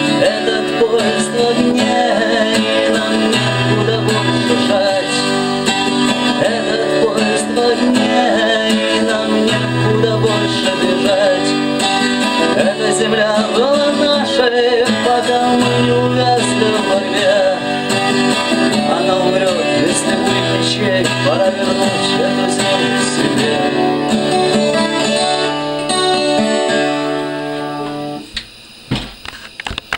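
Twelve-string acoustic guitar strummed with a pick in a steady instrumental outro. The playing stops suddenly shortly before the end, followed by a few knocks as the guitar is moved.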